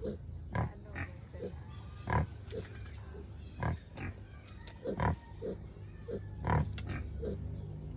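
Free-range native black pigs grunting, with short, separate grunts coming every second or so, some louder than others. A thin, steady high tone runs underneath.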